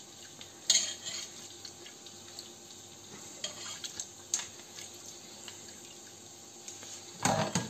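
Pork broth ladled out of a cooking pot and poured through a small plastic strainer into a bowl: a soft trickle of liquid, with a few sharp clinks of the metal ladle against the pot and strainer, the loudest about two thirds of a second in.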